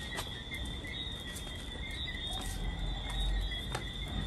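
Crickets chirring steadily at night in one continuous high-pitched tone, with a few faint taps scattered through it.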